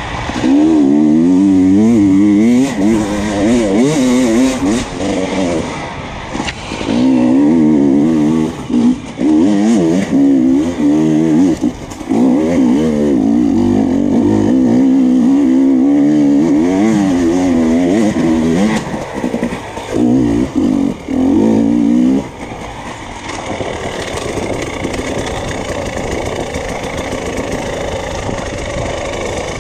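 Enduro dirt bike engine revving hard under load, the pitch rising and falling quickly with short breaks as the throttle is worked over rough forest ground. About 22 seconds in it drops to a quieter, steadier running.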